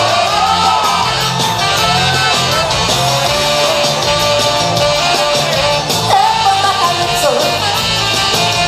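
Loud pop song playing, a sung vocal melody over a steady repeating beat.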